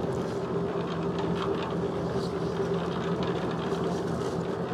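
Small electric concrete mixer running with a steady hum as its drum turns a dry mix of sand and cement, with faint scrapes and ticks of shovels and sand being tipped into the drum.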